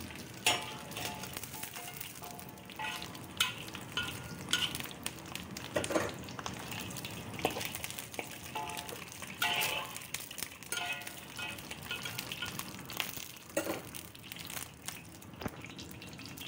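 Pieces of wheat gluten (kaofu) sizzling in hot oil in a wok, done to golden, with a metal skimmer clinking and scraping against the wok many times as the pieces are scooped out.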